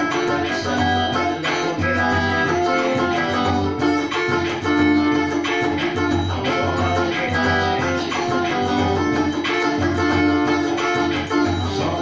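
Xote dance music: a guitar plays a melody line over a steady, pulsing bass beat.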